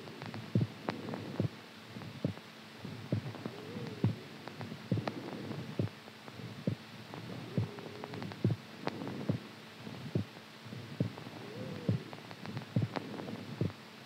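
Heartbeat-like thumping, about two uneven beats a second, with a low hum that swells and fades every few seconds.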